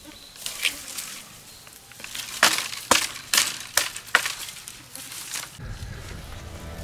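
Axe chopping branches: a run of sharp, separate knocks about half a second apart, a few light ones first, then five heavier strikes. Background music comes in near the end.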